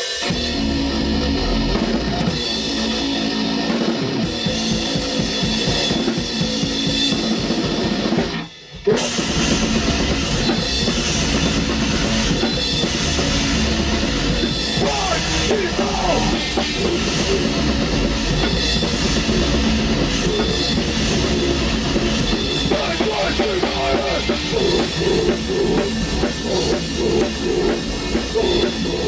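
A black metal band of drums, guitar and bass playing loud in rehearsal. The playing stops abruptly for about half a second, roughly a third of the way in, then comes back in.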